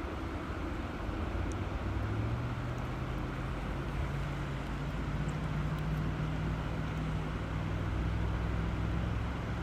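Steady rush of flowing river water under a low engine drone that comes in about a second in and climbs slightly in pitch twice as it goes.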